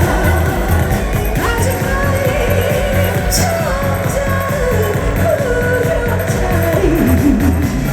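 Loud upbeat trot dance music with a steady pounding beat and a melody line.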